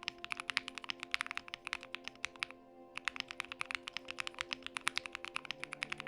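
Fast typing on a Thera75 mechanical keyboard with JWK Silk switches and foam in the build: rapid keystrokes with a brief break about two and a half seconds in, over background music.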